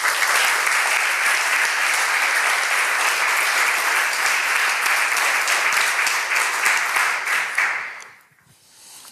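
Audience applauding steadily, dying away about eight seconds in.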